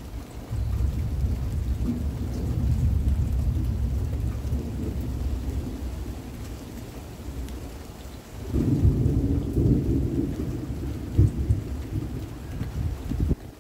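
Thunder rumbling in a rainstorm. A long low rumble sets in about half a second in and eases off; a second, louder rumble with some sharper peaks starts at about eight and a half seconds and breaks off just before the end. Steady rain hisses underneath.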